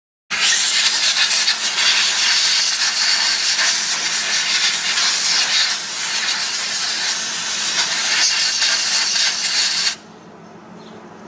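Compressed-air blow gun giving a loud, steady hiss as it blows clean the LNG dispenser nozzle and the truck tank's LNG filling port. It starts a moment in and cuts off sharply about ten seconds in.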